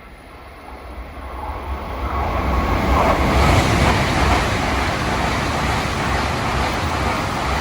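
A train approaching and passing, its rolling noise growing louder over the first three seconds and then holding steady, with a low rumble from the wheels running over the rail joints.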